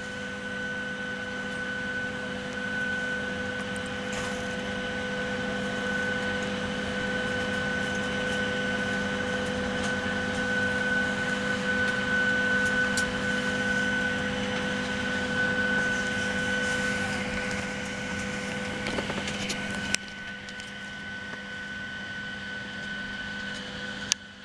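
Steady whine and airflow hiss of a Boeing 737-700 cabin's air-conditioning at the gate, with a few held tones over the rush of air. A sharp click comes about 20 seconds in, after which it runs a little quieter, and another click comes just before the end.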